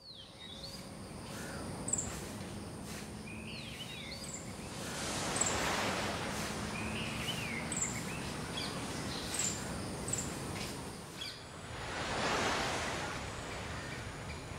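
Sea waves washing ashore, swelling about five seconds in and again about twelve seconds in, with small birds chirping repeatedly in short rising and falling calls.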